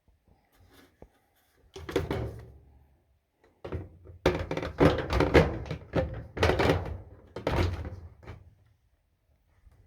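A run of knocks and thumps from work on the dryer's cabinet: a short cluster about two seconds in, then a dense stretch of several seconds.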